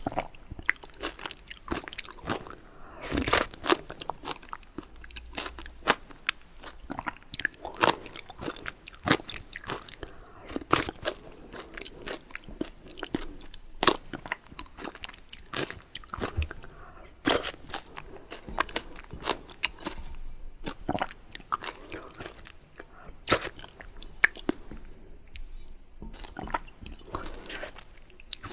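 Close-miked eating: chewing and biting into baguette and vegetable soup, with irregular crisp crunches and sharp mouth clicks.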